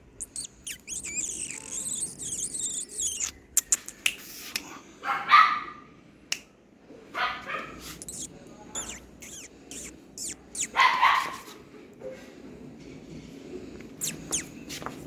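Toy Pomeranian puppies yapping: high-pitched squeals over the first few seconds, then short barks about five seconds in and again near eleven seconds, with scattered sharp clicks in between.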